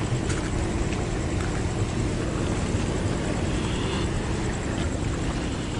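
Steady low rumbling noise, with a few faint clicks early on.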